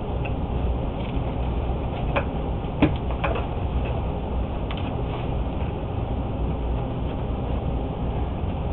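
A steady low hum, with a few short knocks and clicks between about two and five seconds in as objects are handled.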